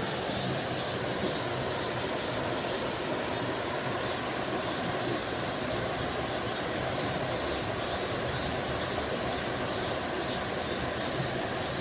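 A steady rushing noise with no distinct events, spread evenly from low to high pitch.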